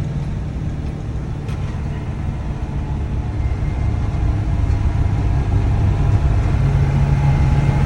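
A vehicle engine runs steadily with a low drone, getting a little louder over the last few seconds.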